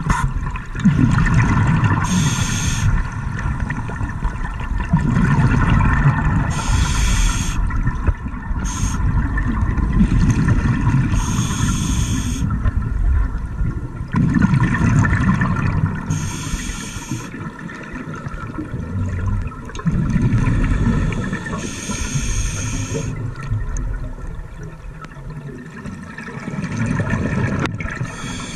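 Scuba diver breathing through a regulator underwater: short hissing inhalations every few seconds, alternating with longer bursts of low bubbling as each breath is exhaled.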